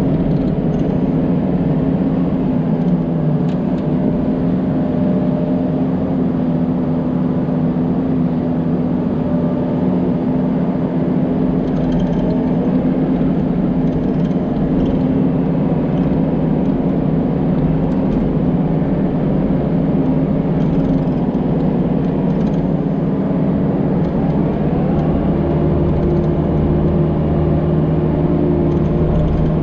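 Diesel engine of a heavy earthmoving machine running steadily, with small shifts in pitch as the load changes.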